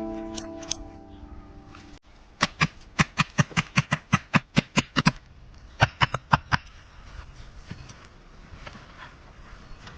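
A quick run of sharp knocks, about five a second for nearly three seconds, then a few more a moment later, as of something hard being struck repeatedly by hand. Guitar music fades out before the knocking begins.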